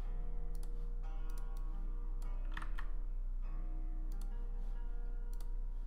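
Soft background music of held, sustained notes, with scattered computer keyboard key clicks over it and a steady low hum underneath.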